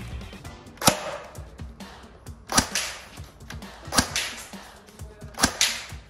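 Tokyo Marui PS90 HC high-cycle airsoft electric gun firing single semi-automatic shots: four sharp shots about a second and a half apart, each with a brief noisy tail.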